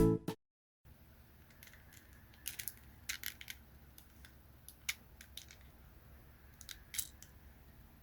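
Music cuts off right at the start. Then come faint, sparse clicks of hard plastic toy parts being handled and snapped together, a small cluster about three seconds in and a sharper single click near the end.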